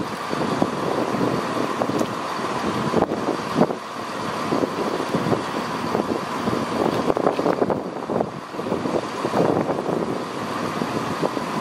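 CrossCountry Class 170 Turbostar diesel multiple unit standing at the platform with its underfloor diesel engines idling, a steady mechanical running sound.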